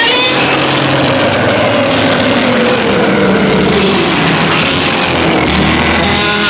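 Giant-monster roar sound effect of the Godzilla and film-dinosaur kind: one long, loud roar that starts suddenly out of silence, its pitch slowly sinking as it goes on.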